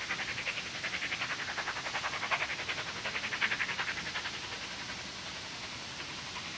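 Q6 0-8-0 steam locomotive working hard up a steep bank, its chimney exhaust beating rapidly at about six beats a second. The beats fade away as it draws off, about five seconds in.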